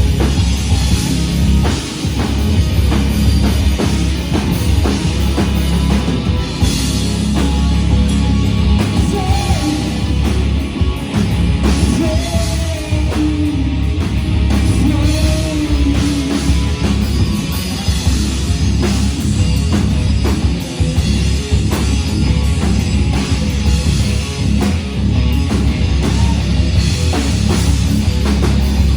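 Loud rock band playing live, with drums, distorted guitar and bass, and a voice singing over it.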